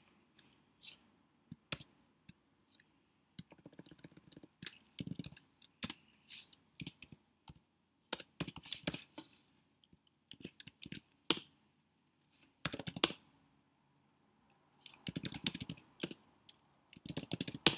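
Typing on a computer keyboard: keystrokes in short irregular runs with pauses in between.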